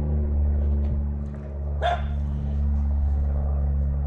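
A dog barks once about two seconds in, over a steady low hum.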